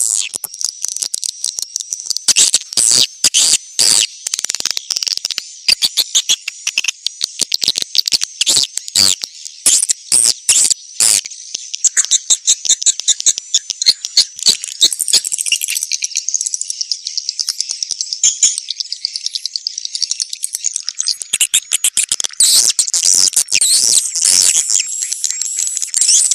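Swiftlets' 'birahi' (courtship) call: a dense, unbroken high twittering and chirping laced with fast runs of sharp clicks, which thin out midway and come back thick near the end. This is the kind of call recording played to lure swiftlets into a swiftlet house.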